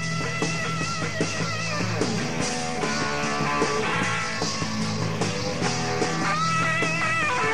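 Live rock band playing an instrumental passage: electric guitar holding long, wavering high notes near the start and again near the end, over a steady bass line and a regular drum beat.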